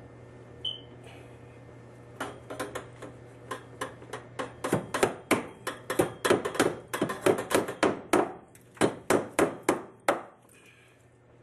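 Hammer driving a copper pipe hook into a wooden floor joist to hold up a sagging copper water line: a run of sharp metal taps, several a second, from about two seconds in until near the end.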